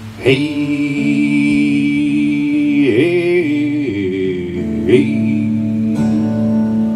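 Live music: a man singing long, held wordless notes over a steady sustained drone, the voice sliding between pitches a few times.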